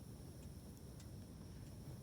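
Wood fire crackling faintly: a few small, sharp pops, the clearest about a second in, over a low steady rumble.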